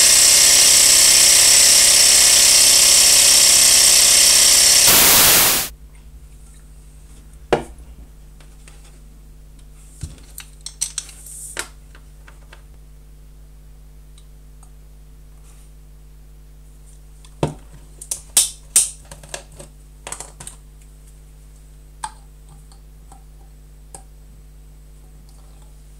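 A loud, dense noise that cuts off suddenly about five seconds in. Then hands handle small glass and metal parts, a spirit burner among them, on a cutting mat: scattered clicks and knocks over a faint steady hum, busiest near the middle and again after two-thirds of the way through.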